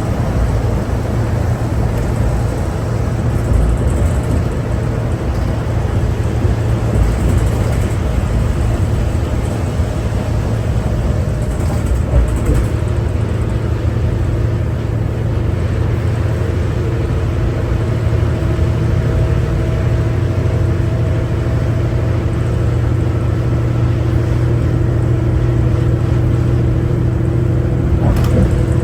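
A 2011 New Flyer D60LFR articulated diesel bus, with a Cummins ISL9 engine and Allison B500R transmission, heard from inside the cabin while under way: a steady low engine rumble with road noise. Steady whining tones grow stronger about halfway through, and there is a brief knock near the end.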